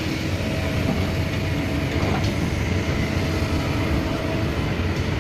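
Kobelco hydraulic excavator working soil, its diesel engine running steadily as a low rumble with a faint steady whine over it.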